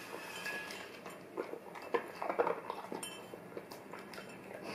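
Golden retriever eating cereal from a bowl, with a metal spoon clinking against the bowl. A cluster of quick clicks and crunches is loudest a couple of seconds in.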